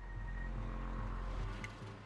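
Opening of a film-style music-video intro soundtrack: a low steady rumble with a faint high tone over it, like night-city traffic ambience.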